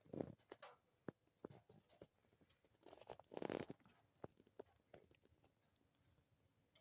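Munchkin cat yawning close to the microphone: a short faint puff at the start and a longer breathy exhale about three seconds in, with scattered soft clicks in a near-silent room.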